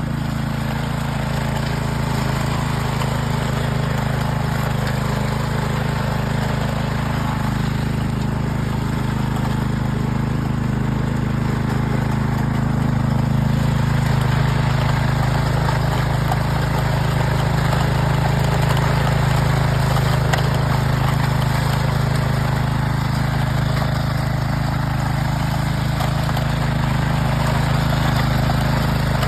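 A tiller's engine running steadily as it works the field, a little louder from about the middle on.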